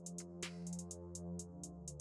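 Electronic background music with a quick, steady hi-hat beat over held bass and synth notes.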